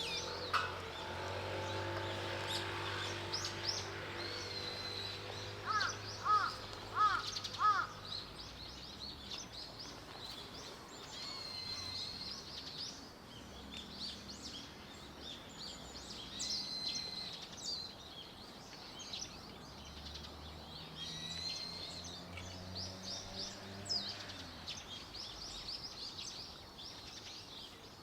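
Birds calling, with many short high chirps and tweets throughout. About six seconds in, a crow gives four loud caws in quick succession. A low steady hum sits underneath during the first few seconds.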